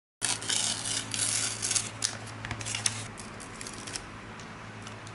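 Crinkly rustling and light clicking of stickers and their translucent backing sheets being handled and peeled, dense for the first few seconds, then sparser, over a faint steady hum.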